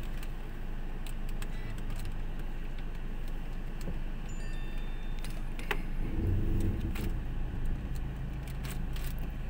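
Car engine running at low speed, heard from inside the cabin as a steady low hum, with scattered light clicks and rattles. A brief, slightly louder low sound comes about six seconds in.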